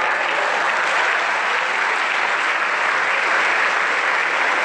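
Audience applauding a stand-up comedian's punchline: steady, even clapping with no pauses.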